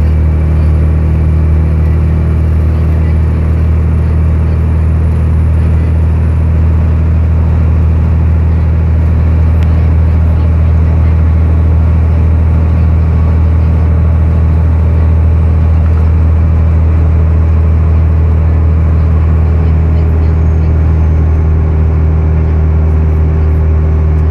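Interior sound of a 2006 New Flyer D40i transit bus at highway speed: its Cummins ISL diesel engine runs with a steady low drone under continuous road and tyre noise, heard from the passenger cabin.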